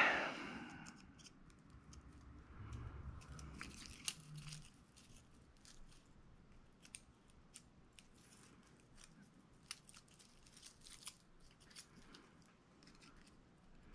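Faint, sparse small clicks and light handling noise from hand tools working on the valve train of a Briggs & Stratton Vanguard V-twin engine as the valve clearance is checked, with a brief low hum about three seconds in.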